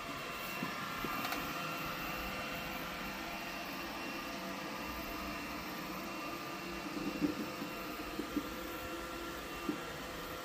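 Cuckoo Powerclone robot vacuum cleaner running: a steady motor whir with a thin high hum, and a few light clicks in the latter part.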